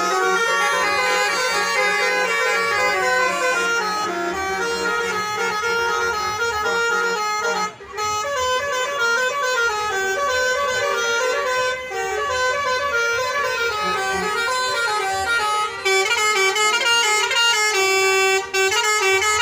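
Musical 'telolet' bus horns playing continuous tunes, several tones at once stepping up and down in pitch, with a brief break about eight seconds in.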